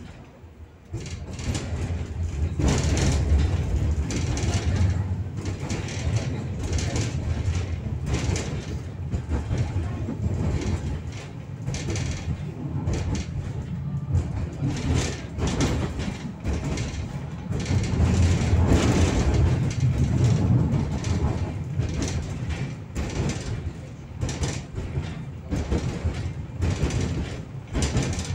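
71-623-04 tram running along the track, heard from inside: a steady rumble of wheels on rails with frequent irregular clicks and knocks from the track. The rumble swells twice, about two seconds in and again past the middle.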